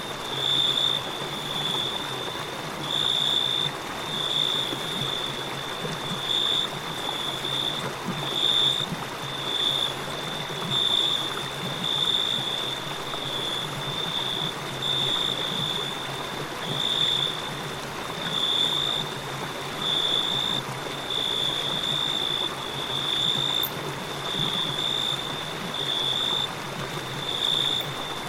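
River water flowing with a steady rush, overlaid by crickets chirping on one high, steady pitch in trills that swell and fade about every second or two.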